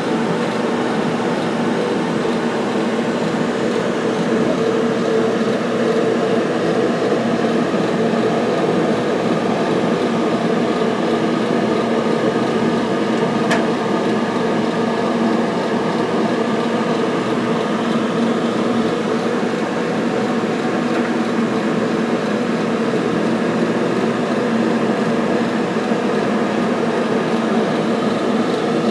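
Steady hum of running fans, with several low tones over an even whir; a single faint click about thirteen seconds in.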